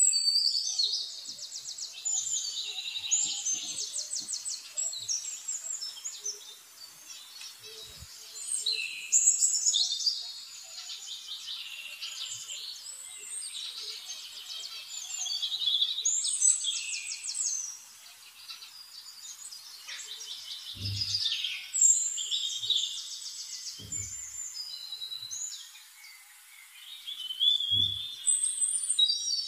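Songbird singing: high-pitched phrases of fast trills and chirps, each a few seconds long, with short pauses between them. Three soft low thumps fall in the last ten seconds.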